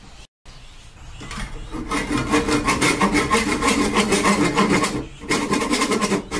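Small hand saw sawing through a round turned wooden knob held in a lathe chuck, in quick back-and-forth strokes. It starts about a second in and breaks off briefly about five seconds in.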